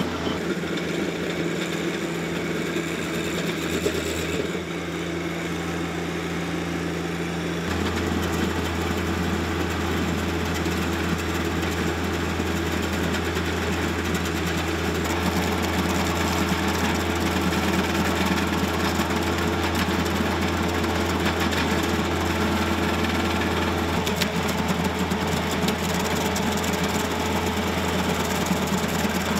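A John Deere compact tractor's diesel engine runs steadily under load, driving a Baumalight 1P24 PTO stump grinder whose cutter wheel chews down a tall wood stump. The steady sound shifts abruptly about a quarter of the way in and again near the end.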